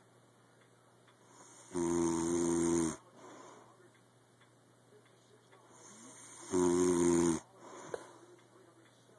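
Loud, pitched snoring: two long snores about five seconds apart, with quieter breathing between them.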